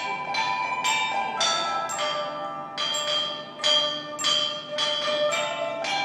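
A set of tuned bronze chime bells (bianzhong) struck in a melody, about two notes a second, each note ringing on under the next.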